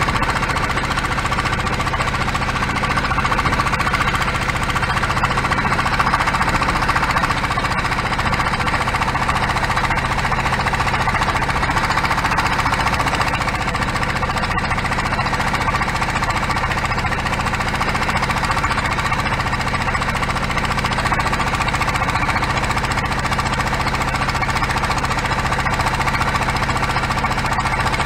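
Small boat's engine running steadily with a knocking beat while the boat moves along.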